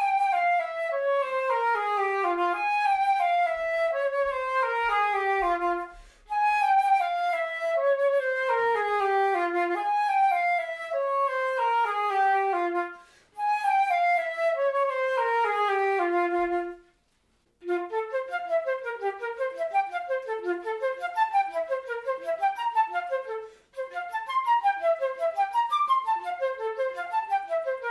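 Flute playing practice exercises: three long descending runs of notes, each a few seconds long. After a short pause about 17 seconds in, quick short notes leap up and down in a zigzag pattern.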